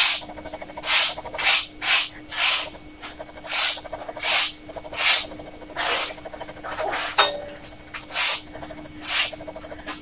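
Fountain pen nib scratching across paper in short hatching strokes: about a dozen louder scratches, roughly one a second, with a faint rapid ticking of fine lines between them.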